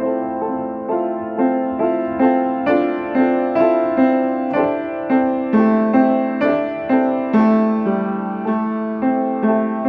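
Solo piano improvisation: notes struck about twice a second in an even pulse, each ringing and fading over held lower notes.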